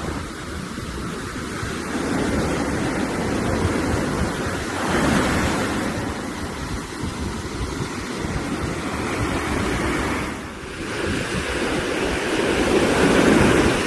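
Sea waves breaking and washing on the shore, a steady rush that swells and eases every few seconds, loudest near the end.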